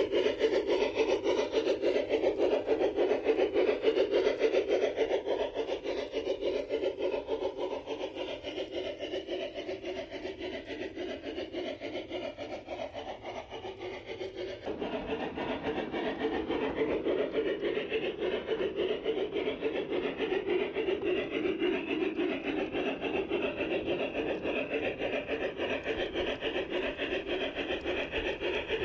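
G scale model train running along garden track, a steady rhythmic rasping with fast, even pulses. The sound shifts abruptly in tone about halfway through.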